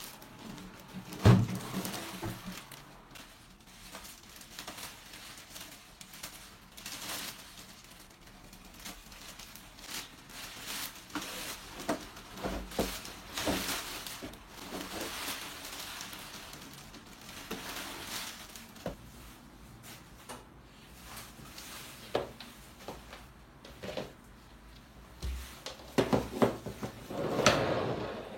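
Unboxing and handling noises from a baby stroller and its packaging: rustling wrapping and cardboard with scattered knocks. A sharp thump comes about a second in, and a busier burst of rustling and knocks comes near the end.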